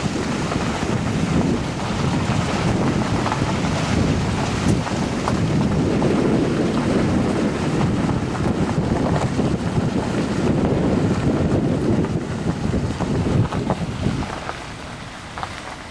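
Moving vehicle with a steady rushing of wind and road noise buffeting the microphone, easing off near the end as it slows.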